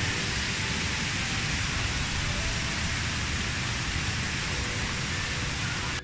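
Steady rushing of the Kuang Si Waterfalls' cascades, an even, unbroken water noise.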